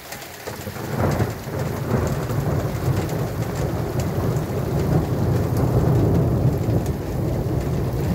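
Thunder rumbling, building about a second in and rolling on steadily, over rain falling.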